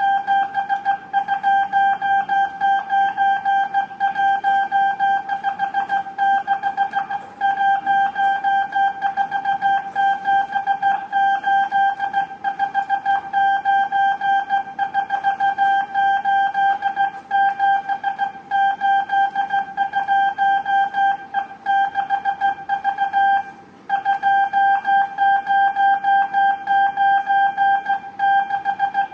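Morse code sidetone from a hand-keyed telegraph key: one steady high beep keyed on and off in quick dots and dashes, sending groups of numerals in a radio-telegraph operator's sending test. There is a short pause about 23 seconds in, then the keying resumes.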